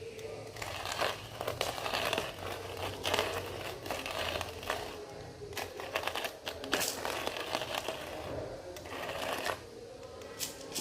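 Coffee grinder crushing coffee beans for a V60 pour-over, an irregular crackle of crunches and clicks with no steady rhythm.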